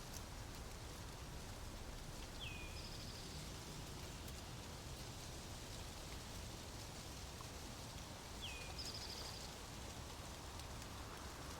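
A small songbird singing faintly, twice about six seconds apart: each song a short falling slur followed by a high, fast trill. Under it runs a steady low background rumble.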